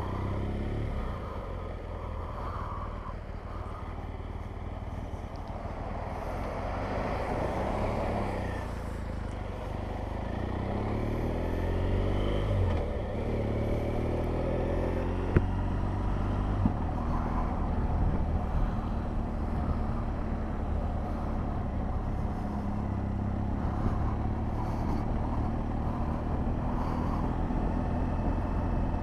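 A BMW R 1200 GS Adventure's boxer-twin engine running on the move under steady wind rumble, its note rising as the bike picks up speed around the middle. A single sharp click about halfway through.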